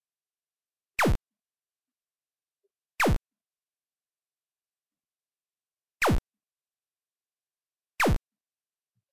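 Four short electronic zaps, each a quick downward pitch sweep ending in a low thud, irregularly spaced with dead silence between. They are the unexplained noises coming out of the computer's audio, which the owner fears mean his PC is broken.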